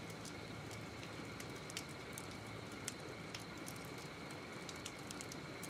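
Wood campfire crackling: irregular sharp pops and snaps over a steady hiss.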